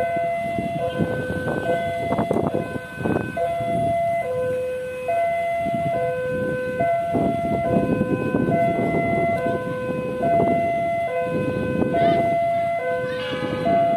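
Railway level-crossing warning alarm sounding as the crossing closes: an electronic two-tone signal, a low and a higher note alternating steadily over and over, with road traffic noise underneath.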